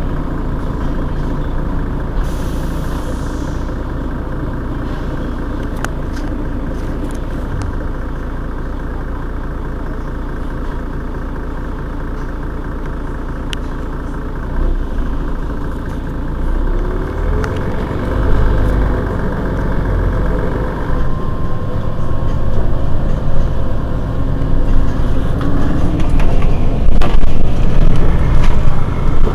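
Mercedes-Benz Citaro G C2 articulated bus's diesel engine running steadily at idle, then picking up speed over the second half, rising in pitch and growing louder.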